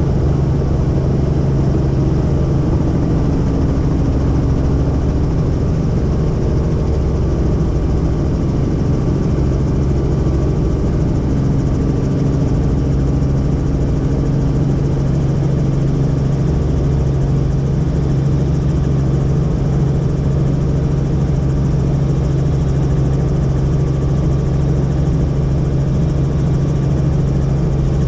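Helicopter in flight heard from inside the cabin: a loud, steady drone of engine and rotor with a strong low hum, unchanging throughout.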